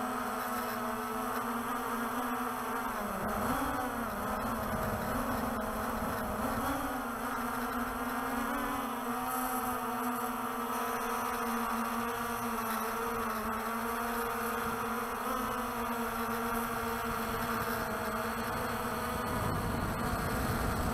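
Walkera TALI H500 hexacopter's six rotors buzzing steadily in flight, like an angry bee swarm. The pitch wavers briefly about three seconds in and again around six to seven seconds.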